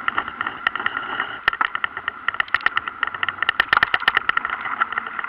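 Mountain bike rolling over a town street, recorded from a camera under the saddle: fast, irregular rattling clicks from the bike and camera mount over bumps, above a steady whirring hum.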